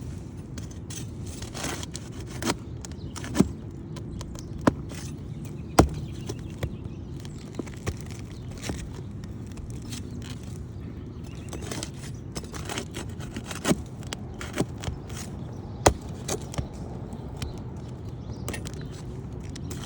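Prying and scraping at asphalt roof shingles, with irregular sharp clicks and knocks, as the seal strips are broken loose to free a shingle for removal.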